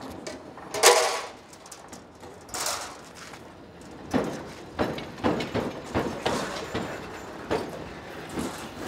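Vintage tram rolling slowly past, its wheels knocking and clacking irregularly over rail joints and points from about four seconds in. About a second in there is a short, loud rushing burst, the loudest sound, from an unclear source.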